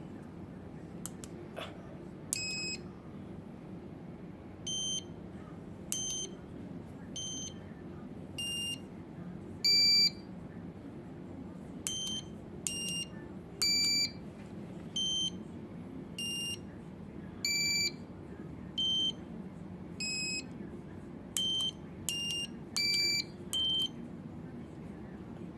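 Piezo beeper of a home-built Simon-style memory game kit playing short electronic beeps at several different pitches, about twenty in irregular succession as the game is played. A few faint clicks come near the start.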